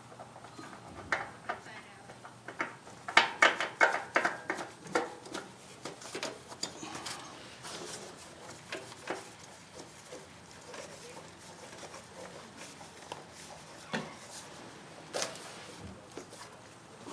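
Scattered clicks and knocks, with a quick run of sharp clicks about three seconds in.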